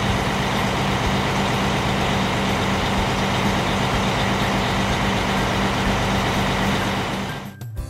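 Heavy truck engine running steadily as a sound effect, with a constant low hum, fading out near the end.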